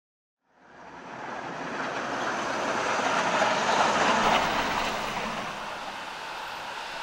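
A van driving slowly past over gravel, its noise fading in, at its loudest about four seconds in, then easing off to a steady background.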